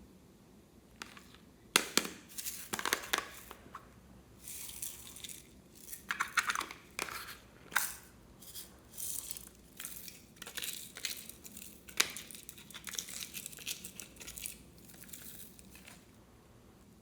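Slime being squeezed, pressed and pulled apart by hand, giving irregular crackling, popping and sticky clicks with hissy stretches, the sharpest snaps about two seconds in and near the middle.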